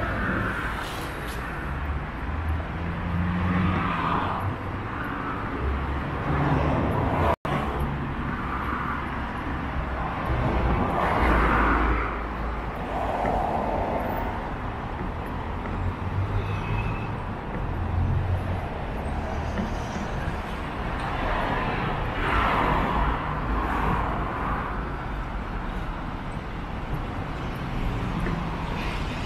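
Street traffic on a wet road: cars passing one after another, their tyre hiss swelling and fading several times over a steady low rumble of engines.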